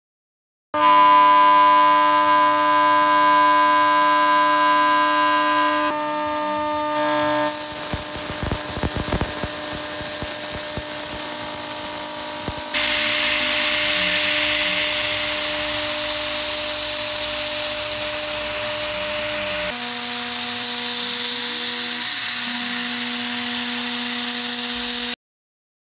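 CNC router spindle whining at a steady pitch while cutting and engraving brass. The pitch and the machining noise change abruptly several times, with a stretch of fast rattling clicks about eight to ten seconds in.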